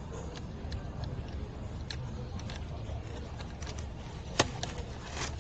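Small clicks and taps of plastic and metal fuel-cap parts being handled and fitted together, a sharper click about four and a half seconds in, over a steady low background rumble.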